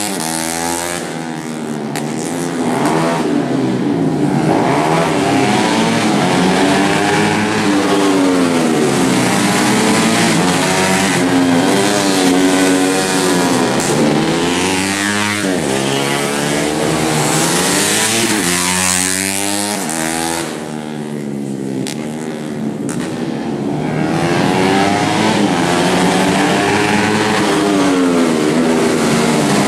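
Road-race underbone motorcycles, among them a Suzuki bebek, revving hard as they pass. The engine pitch climbs and falls again and again through the gear changes, with a brief lull about twenty seconds in.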